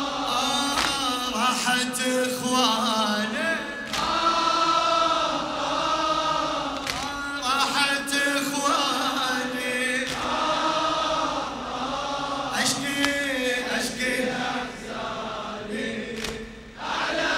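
A large congregation of men chanting a Husseini latmiya refrain in unison, a Shia mourning lament sung with the reciter, with a few sharp knocks scattered through it.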